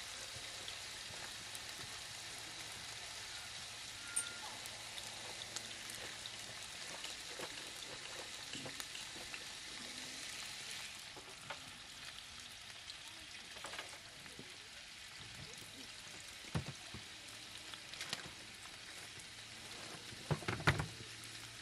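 Hot dogs and sausages sizzling steadily in a frying pan on a portable gas camp stove. A few knocks come in among the sizzle, ending in a quick cluster of louder knocks near the end.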